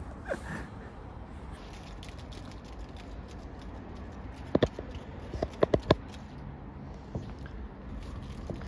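Leaves on a small hand-held branch rustling as it is shaken, with a few short, sharp rustles about four and a half seconds in and a quick cluster of them around five and a half to six seconds.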